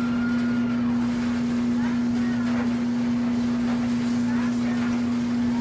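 Steady low electric hum from a kitchen appliance, unchanging in pitch and level.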